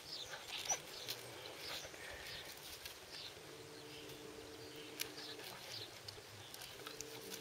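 Quiet outdoor ambience with small birds chirping. A flying insect such as a fly or bee buzzes by for about two seconds around the middle, then again near the end.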